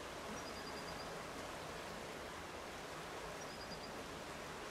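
Steady rushing of a fast, swollen, muddy river in flood. A brief high trill sounds twice, near the start and again about three and a half seconds in.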